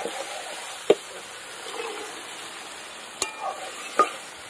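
Masala frying and sizzling in a metal kadai as a metal spatula stirs boiled dried peas (matar) into it. There are sharp spatula clinks against the pan about a second in and a few more near the end.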